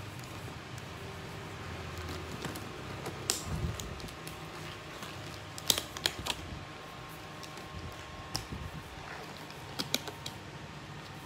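Disposable gloves being changed: scattered small clicks and snaps of handling, a few close together about halfway through and again near the end, over a low steady hum.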